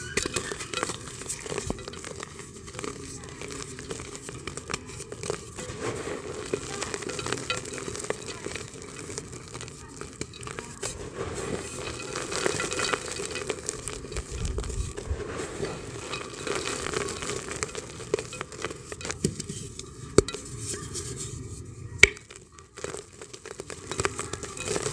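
Hard, dry multani mitti (Fuller's earth) clay crumbled by hand inside a terracotta clay pot: a continuous fine crackling and crunching as the lumps break and the powder pours onto the pot's floor. There is a sharper snap about 22 seconds in.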